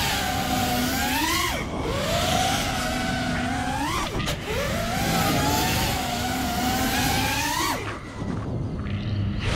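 The brushless motors and propellers of a 4S 5-inch FPV quadcopter whining, heard from the GoPro mounted on it; the pitch climbs as the throttle is pushed and drops sharply three times as the throttle is chopped, and the sound goes quieter and lower near the end.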